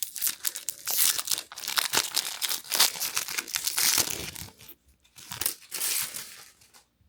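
Trading card pack wrapper being torn open and crinkled, a dense crackling for the first four seconds or so, then a few shorter crinkles near the end.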